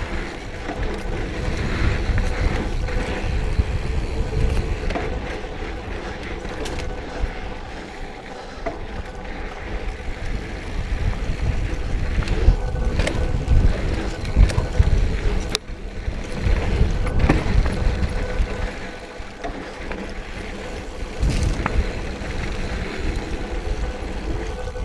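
Mountain bike riding down a dirt trail: wind rumbling on the camera microphone, tyres on dirt, and the bike rattling with sharp knocks over bumps.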